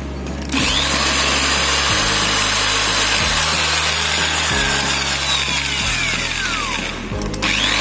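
Electric drill boring a screw hole for the repair plate. It starts about half a second in, stops briefly near the end and starts again, over background music with low held notes.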